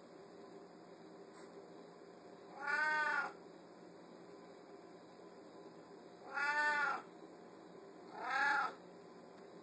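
Domestic cat meowing three times: the first about two and a half seconds in, the other two close together near the end, each short and rising then falling in pitch.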